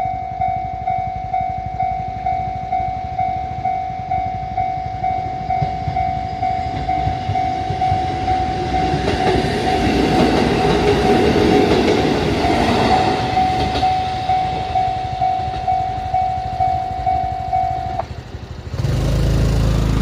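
Japanese level-crossing warning bell ringing about twice a second while a Kotoden 1200-series two-car electric train passes. The train's running noise swells and fades in the middle. The bell stops near the end and a loud low rumble follows.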